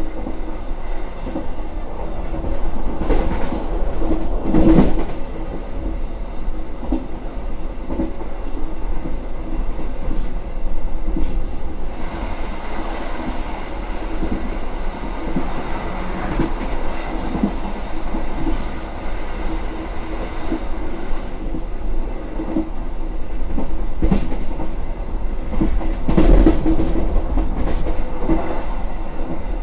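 KA Argo Semeru passenger train running at speed, heard from on board: a steady rumble and hum with irregular clacks and knocks from the wheels on the rails, strongest about five seconds in and again near the end.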